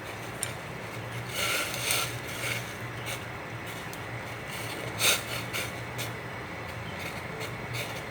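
Pot of soup heating on a stove toward the boil: a steady low hum and hiss with a few short clinks and scrapes, the loudest about five seconds in.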